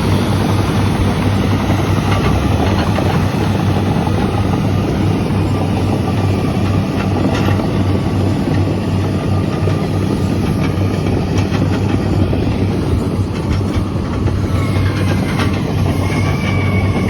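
Heavy diesel engines of a CAT D9 bulldozer and a Komatsu PC310 excavator running steadily, over a continuous clatter with scattered knocks. A thin high squeal comes in near the end.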